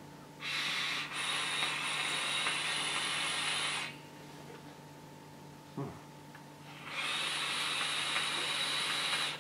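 Two long draws on an e-cigarette, each a steady hiss of air through the atomizer lasting about three seconds, the second starting about seven seconds in.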